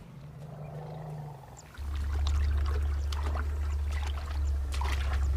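Elephant rumbling: a loud, very deep, steady rumble that starts about two seconds in and holds, with scattered sharp cracks and clicks over it.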